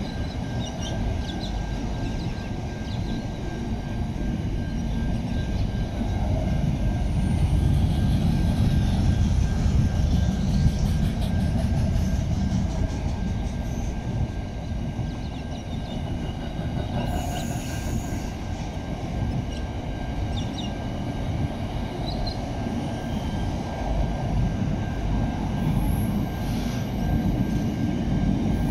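Pacific National intermodal freight train's container wagons rolling past on the rails: a steady low rumble of wheels and bogies, a little louder partway through, with a thin steady wheel squeal above it.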